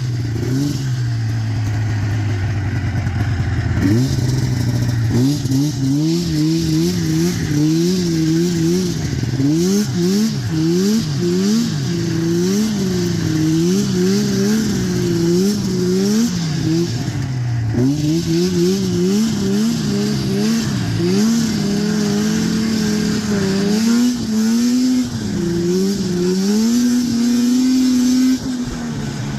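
1990 Arctic Cat EXT 530 snowmobile's two-stroke twin engine running low and steady at first, then revving up and down again and again as the throttle is worked, and dropping back down near the end.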